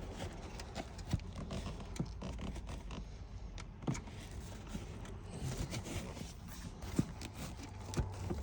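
Hands working under a pickup truck seat's leather cover: scattered light clicks, knocks and scraping of plastic and metal parts, with a sharper knock about four seconds in and another near seven seconds.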